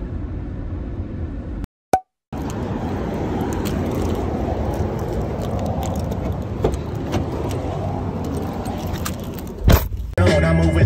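Steady road and engine noise heard from inside a moving car, broken by a short silent cut, with a thump near the end as background hip-hop music comes in.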